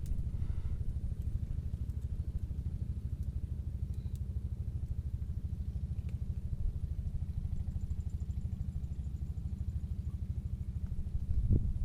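A small engine running steadily at idle, a low, evenly pulsing rumble, with a brief louder low thump near the end.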